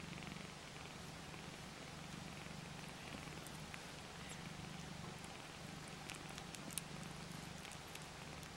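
Cat purring faintly and steadily while kittens nurse, swelling and fading in long waves. A few small clicks come through, the sharpest about seven seconds in.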